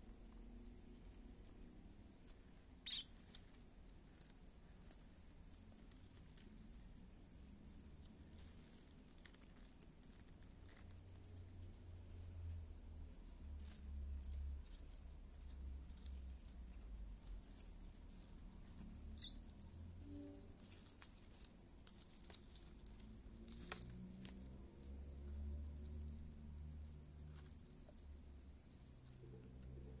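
Crickets or other night insects trilling steadily at a high pitch, with faint low rumbling and rustling from handling around the grass nest and a few sharp clicks, the loudest about three seconds in.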